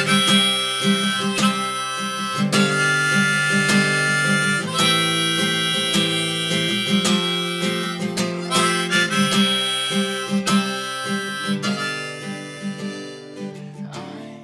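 Harmonica solo over a strummed acoustic guitar, dying down near the end.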